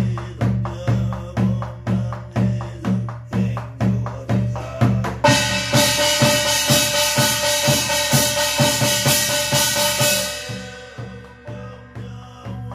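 Korean barrel drum (buk) beaten with a stick in a steady beat, about two strokes a second. About five seconds in, a loud, bright ringing with several tones joins the beat for about five seconds, then fades away.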